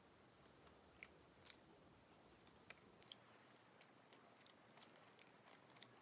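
Faint, quiet chewing of a soft egg-yolk pastry, with scattered small clicks and ticks from the mouth.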